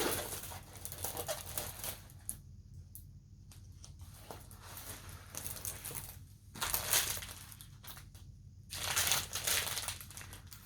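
Plastic packaging of a diamond-painting kit crinkling as it is handled, in three or so rustling bursts with quieter handling between them.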